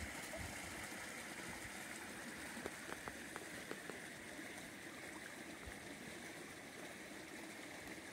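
Shallow creek trickling steadily over stones and logs, with a few light clicks about three seconds in.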